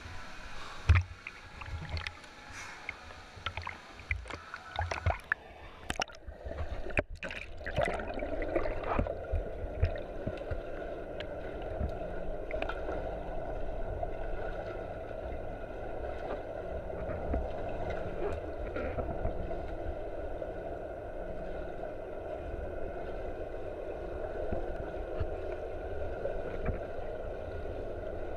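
Water splashing and sloshing against a camera at the surface of a swimming pool. About seven seconds in the sound goes under water and becomes a steady, muffled underwater hum and rumble as the camera glides along with a freediver swimming with a monofin.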